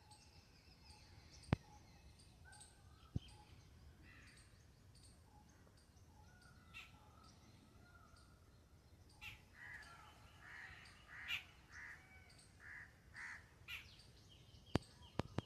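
Faint bird calls, with a run of short calls late on, and a few sharp clicks.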